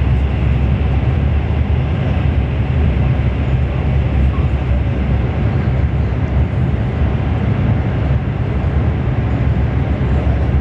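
Steady low rumble of a CRH1A-A high-speed electric multiple unit running at speed, heard inside the passenger cabin.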